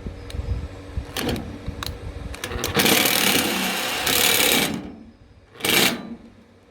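Power drill driving a screw through a steel beam connector into a metal beam. A few clicks, then about two seconds of loud drilling, and a short final burst before it stops, the screw now tight.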